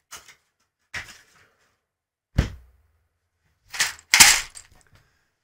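Plastic building bricks and their parts bags being handled: about five separate sharp clicks and knocks, the loudest pair about four seconds in.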